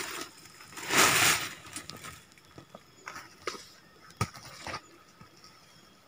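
Harvested salak fruit poured from a woven basket into a woven plastic sack: a short rushing tumble of fruit about a second in, then a few faint knocks.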